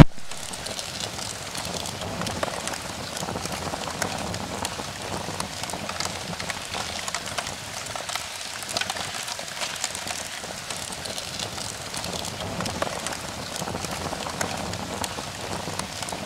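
Steady hiss dotted with dense, irregular small crackles and pops.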